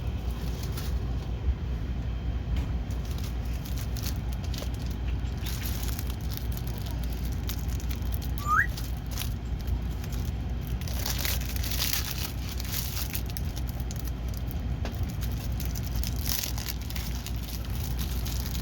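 Plastic packaging of a rolled diamond-painting canvas rustling in short spells while it is handled, over a steady low hum. One brief rising squeak comes near the middle.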